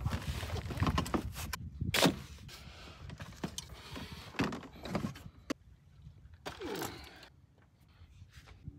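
Gear being loaded into a Native Ultimate FX 15 kayak: dry bags rustling and knocking against the plastic hull, then a small solar panel and its cables set down on top, with scattered knocks and clicks, the loudest knock about two seconds in.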